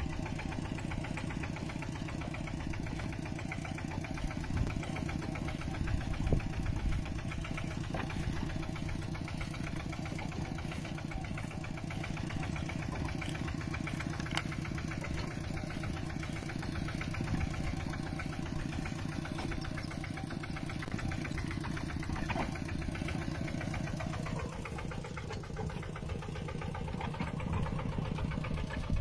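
Mini tractor's engine running steadily at an even speed, a rapid, regular chugging.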